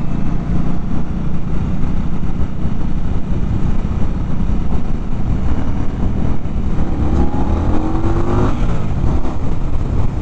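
2019 Indian Scout Bobber's 1133 cc V-twin running under way, with wind rush on the microphone. About seven seconds in the engine revs up, rising in pitch toward higher RPM, then drops off suddenly near the end; the exhaust is very quiet.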